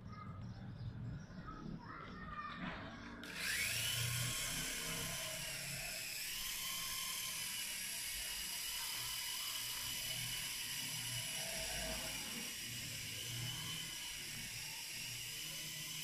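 Syma S107N toy RC helicopter's small electric motors and coaxial rotors: a high whine starts suddenly about three seconds in and quickly rises in pitch as the motors spin up for take-off, then holds fairly steady while it hovers and flies.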